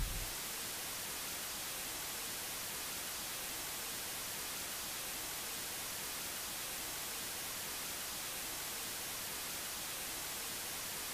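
Steady, even hiss of analogue television static from a CRT set tuned to an empty channel.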